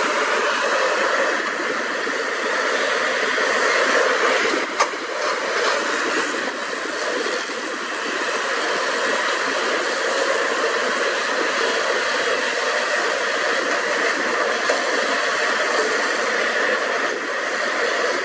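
Several Caterpillar hydraulic excavators working together, their diesel engines and hydraulics making a steady drone, with a sharp knock about five seconds in.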